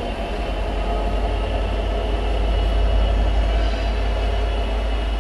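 Class 37 diesel locomotive with its English Electric V12 engine, the 'growler', running light engine at low speed with a Class 20 and a Class 66 coupled behind. Its deep engine rumble grows louder to a peak about three seconds in, then eases slightly.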